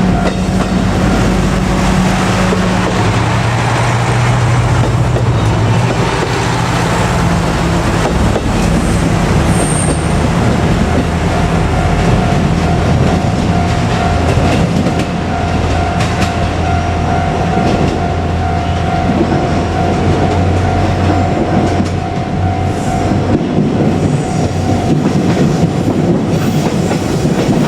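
JR Kyushu KiHa 200 diesel railcar running on the line, its diesel engine and wheels on the rails heard steadily.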